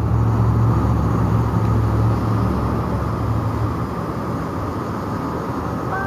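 Street traffic: a car engine's low hum over road noise, loudest in the first few seconds and then easing off a little.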